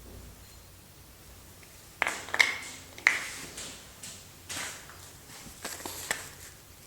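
Soap packaging being opened by hand: the paper and cardboard wrapper crinkles and tears in a series of sharp rips and crackles, starting about two seconds in.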